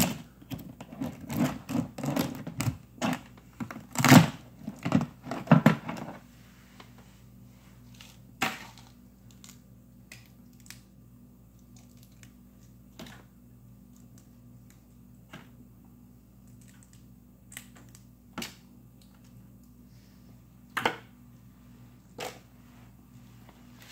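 Plastic zip-top bags of crabs crinkling and knocking as they are moved about on the wire shelves of an upright freezer: a busy run of rustles and knocks for about the first six seconds, then scattered single knocks and rustles. A low steady hum comes in about six seconds in.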